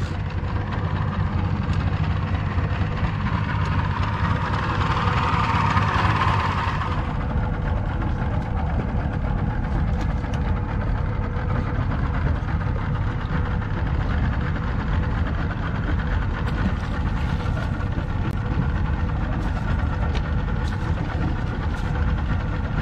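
Outboard motor of a small fishing boat running steadily, with a louder rush of noise between about four and seven seconds in.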